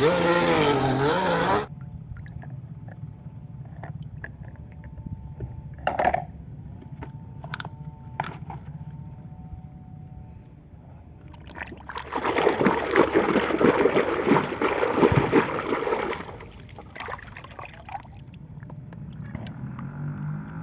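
Water pouring and splashing, loudest for about four seconds in the second half, with a few sharp clicks before it. A short wavering tone is cut off suddenly near the start.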